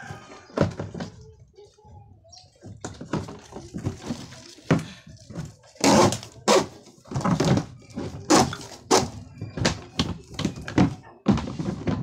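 Plastic washing machine cabinet knocking and scraping on a concrete floor as it is tipped back upright and set down: a series of irregular thuds, loudest about halfway through.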